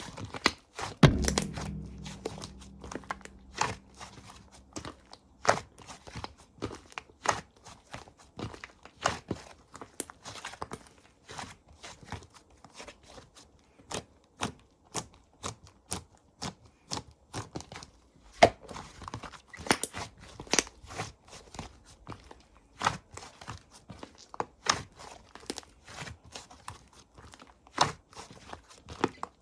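Slime being squished and pressed by hand, giving an irregular run of sharp clicks and pops, with a heavier thump about a second in.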